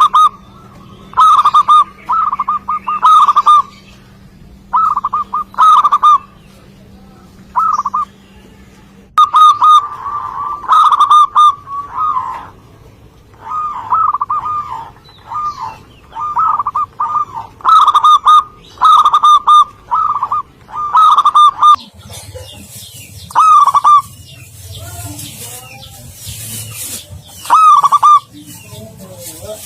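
Zebra dove (perkutut) cooing loudly: phrases of short, rapid, staccato coo notes repeated every second or two. Two-thirds of the way in, higher chirping from other small birds joins and the coos come less often.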